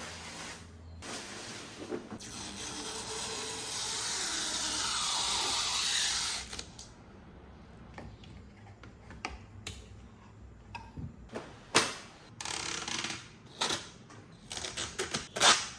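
Hands unpacking and assembling a computer monitor. A long rustling scrape of packaging lasts a few seconds, then comes a string of sharp clicks and knocks as parts are handled and fitted together.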